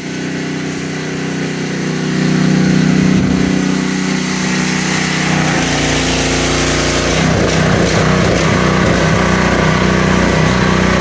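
An engine idling steadily, heard from inside a car's cabin, with a deeper, rougher rumble joining about six seconds in.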